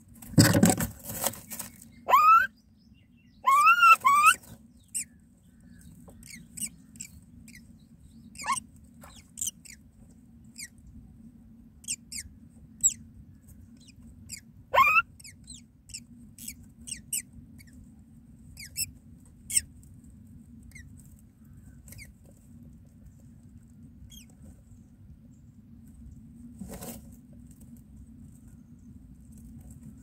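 Common mynas at a nest of newly hatched chicks: a burst of rustling near the start, then short chirps that rise in pitch over the first few seconds and once more midway, with faint high peeps and scratches scattered through over a low steady hum.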